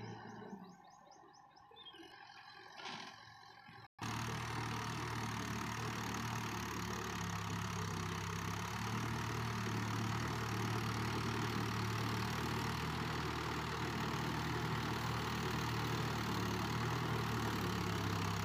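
After a quiet opening, a farm tractor's engine runs steadily from about four seconds in, working a flooded paddy field during puddling.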